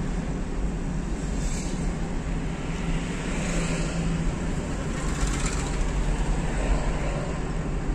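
Car engine and road noise heard from inside the moving car's cabin: a steady low hum that swells briefly a few times.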